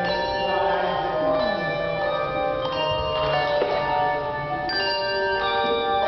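A handbell choir ringing a piece: many overlapping bell notes that ring on and blend, with fresh chords struck every second or so.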